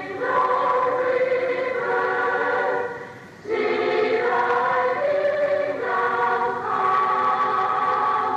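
A choir singing a hymn in held chords, with a brief break for breath about three seconds in.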